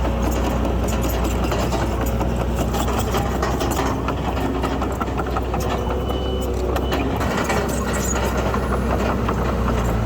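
Heavy earthmoving machine's diesel engine running steadily with a deep, even hum and light rattling.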